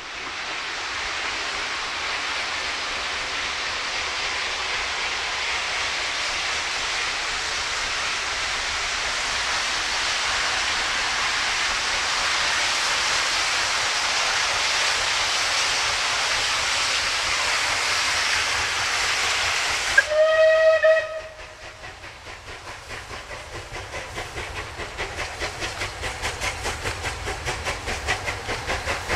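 Rebuilt Bulleid Battle of Britain class steam locomotive hissing steam steadily for about twenty seconds, then sounding one short whistle. Its exhaust beats follow at about three a second, growing louder as the engine works its train toward the camera.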